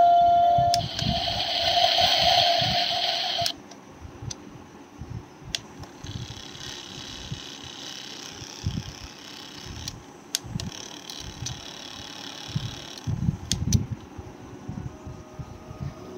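The Infantso baby rocker's battery-powered control unit playing electronic tones from its small speaker. A held note ends in the first second, then a hissing electronic sound plays for about three seconds and cuts off suddenly. After that a faint steady hum is left, with soft knocks from the unit being handled.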